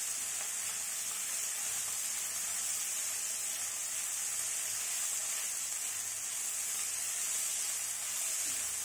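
Small prawns frying in hot mustard oil in a kadai: a steady sizzle, as a silicone spatula turns them.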